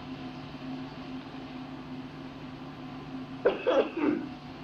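A man coughs three times in quick succession about three and a half seconds in, over the steady low hum of an old recording.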